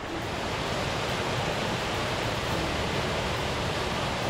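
A small woodland waterfall: a mountain stream cascading over rocks with a steady rushing of water.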